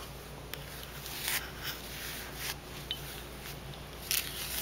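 A comb drawn through hair in several short brushing strokes, spaced about a second apart.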